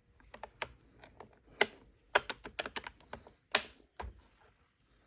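Irregular light clicks and taps, about a dozen, from a chainsaw's air filter cover being handled. The two loudest come about one and a half seconds in and three and a half seconds in. The cover is worn and close to tearing.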